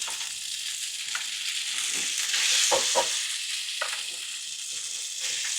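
Spaghetti sizzling in hot oil in a wok, a steady high hiss, with a few light knocks of the utensil against the wok as it is stirred.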